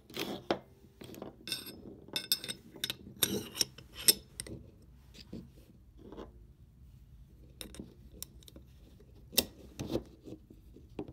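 Steel parts of a Smith & Wesson M&P Shield 9mm pistol being handled: an irregular run of light clicks, taps and scrapes as the barrel and recoil spring assembly are fitted into the slide, with the sharpest clinks about four seconds and nine and a half seconds in.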